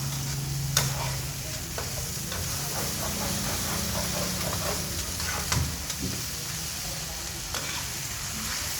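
Food sizzling as it is stir-fried in a pan, with a few sharp clicks of the spatula striking the pan.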